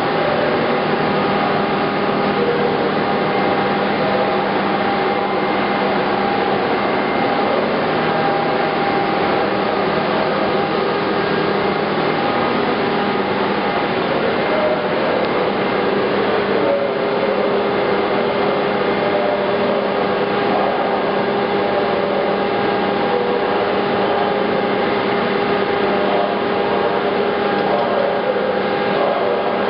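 SMTW H-163 cylindrical grinder running under power: a steady machine hum with several held tones over a continuous rush of noise.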